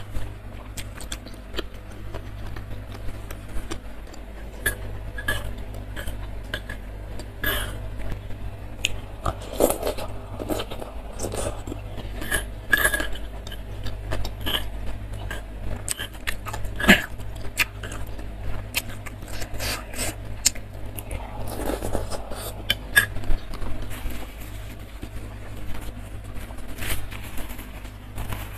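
Close-miked eating: chewing of fried tofu in sauce, with a metal spoon clicking and scraping against a stone mortar bowl every so often.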